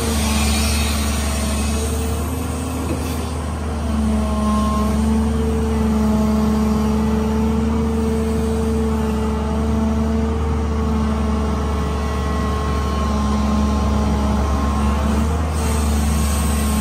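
JCB JS205 excavator's diesel engine running close to the microphone as the arm digs and lifts a bucket of wet sand, with a steady hum from the engine and hydraulics that grows stronger about four seconds in.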